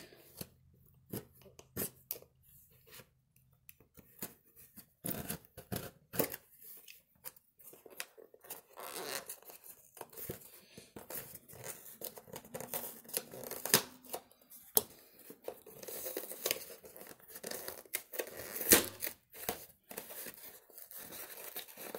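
Hands opening a mailed package: packing material and tape being torn and rustled, with irregular clicks and scrapes from handling the box.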